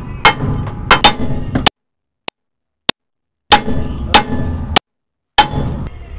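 Sharp metal-on-metal hammer blows, about eight in two groups, on the steering arm of an Eicher 11.12 truck's front wheel, to shock the tapered tie rod end stud loose after its nut is off. The tie rod end has play, which the mechanic blames for the uneven tyre wear.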